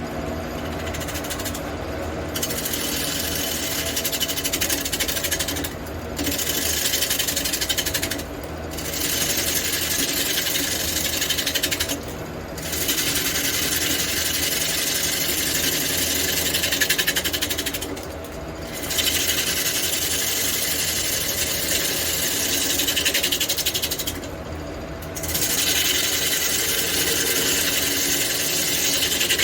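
Wood lathe running steadily while a turning tool cuts into a large spinning block of aromatic red cedar in long passes. The hissing cut breaks off for a moment about six times.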